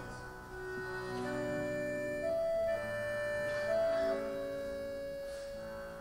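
Two accordions playing together in sustained, held chords, the chords changing about every second with a higher note rising above them twice.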